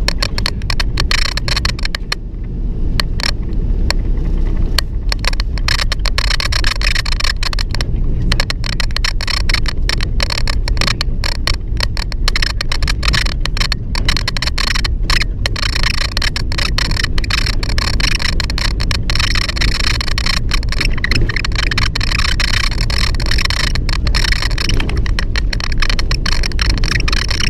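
Steady rumble of a moving vehicle, with its door squeaking and clicking over and over at an uneven pace.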